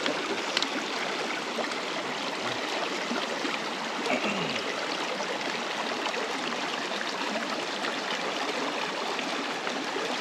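Shallow mountain stream running steadily over stones.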